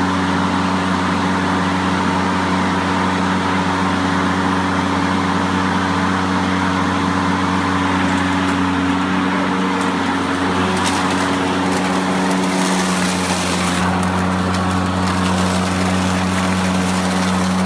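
Homemade electric lawn mower, driven by a 120-volt 2 HP induction motor through a belt, running at full speed with a steady hum and whine. About eleven seconds in, as it starts cutting grass and leaves, part of the whine drops lower and a crackling hiss of shredded clippings joins it: the drive belt slipping under load.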